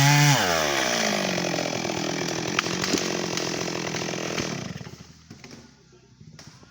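Stihl MS 382 two-stroke chainsaw engine falling in pitch from high revs as the throttle is released, running steadily at idle, then stopping about five seconds in.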